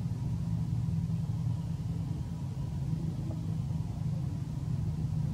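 A steady low rumble, even throughout.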